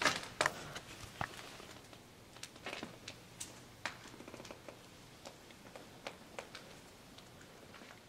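Footsteps and small crunches: irregular light clicks, louder in the first second and thinning to faint scattered ticks.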